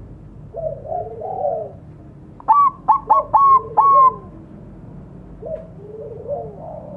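Zebra dove (perkutut bangkok) singing: soft, rolling, trilled coos, then a run of five loud, clear, ringing notes in the middle, then trilled coos again near the end.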